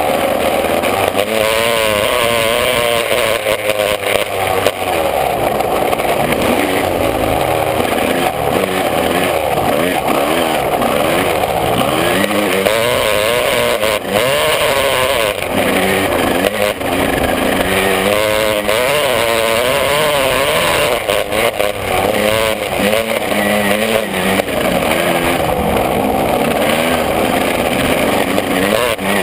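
125 cc two-stroke motocross bike engine being ridden hard, its pitch repeatedly rising and dropping as the throttle opens and closes.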